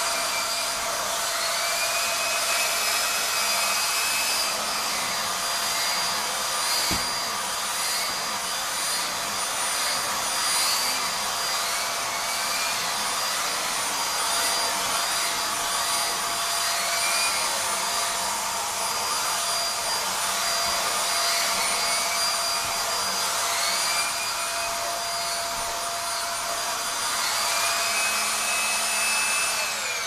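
Vax Mach Air 1200 W bagless upright vacuum cleaner running with its hose and mini turbo brush in use, a steady rushing noise with a whine whose pitch rises and falls again and again as the nozzle is worked over the sofa. Near the end it is switched off and the motor winds down.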